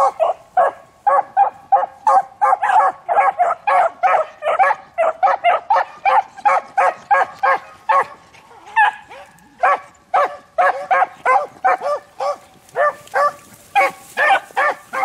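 Several beagles baying together in quick, repeated chop-mouth barks, about three a second, as a pack giving tongue on a rabbit's scent trail. The barking thins briefly about eight seconds in, then picks back up.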